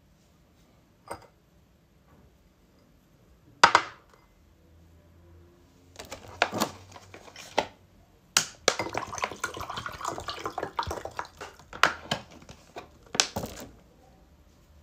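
A drinking glass knocked and clinked on a table, then liquid poured from a bottle into the glass for about three seconds, followed by a couple more sharp knocks of glassware.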